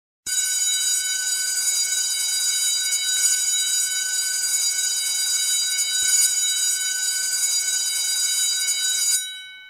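Electric school bell ringing continuously for about nine seconds, a steady metallic ring, then cutting off with a short fading tail.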